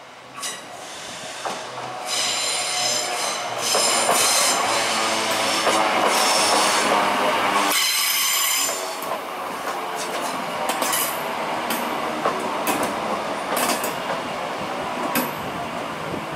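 Electric multiple unit arriving round a tight curve, louder as it nears, its wheels squealing shrilly on the curve until about halfway through. Then the squeal stops and the carriages pass with sharp, irregular wheel clicks over the rail joints.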